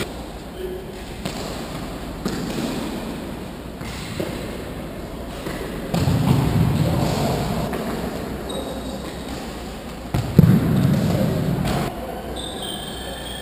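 Football kicked and bouncing on a hard sports hall floor, with a sharp thud about 6 seconds in and the loudest one about 10 seconds in, each ringing out in the large hall. Trainers squeak briefly on the floor, a few times near the end.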